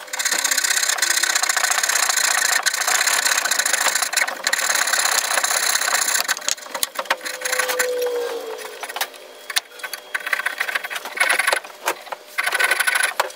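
Fret saw cutting through a 1-inch-thick wooden handle blank in fast back-and-forth strokes. The cutting eases off for a couple of seconds past the middle and picks up again near the end.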